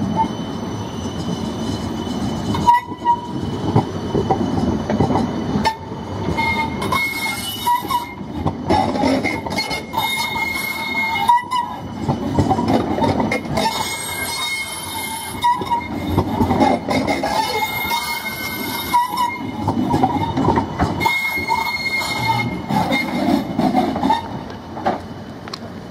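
A 56-metre CAF Urbos low-floor tram rolling slowly past over tram track. Its wheels knock over rail joints and points, and a high squeal comes and goes as it takes the curves.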